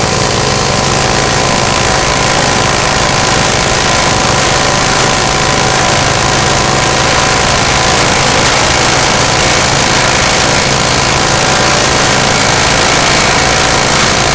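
Grass chopper machine running steadily and loudly while it cuts grass fed into its hopper into short pieces.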